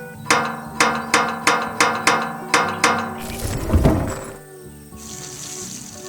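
Evenly spaced, ringing metallic strikes with a clear pitch, about three a second, are followed by a whoosh that swells and fades. After that comes a steady high hiss with faint small chirps.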